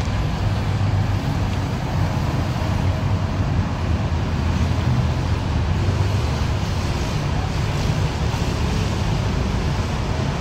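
Steady low rumble with a hiss above it, like road traffic, holding even throughout.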